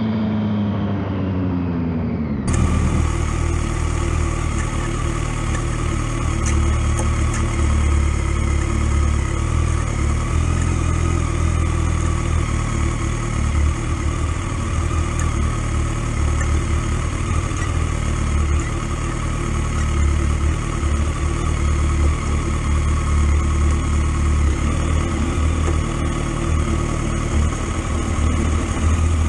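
BMW K1200R Sport's inline-four engine through its stock exhaust. The engine note falls for the first couple of seconds as the revs drop, then changes abruptly to a steady cruising note under a heavy, fluttering low rumble of wind on the microphone.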